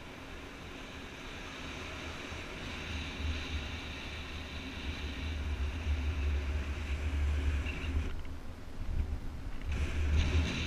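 Wind rushing over a paraglider pilot's camera microphone in flight: a low, steady rumble that grows louder towards the middle and drops away briefly about eight seconds in before coming back.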